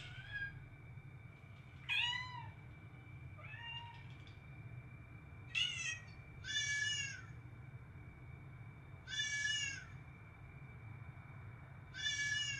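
Domestic tabby cat meowing repeatedly, about six meows a couple of seconds apart, each rising then falling in pitch, some short and some drawn out.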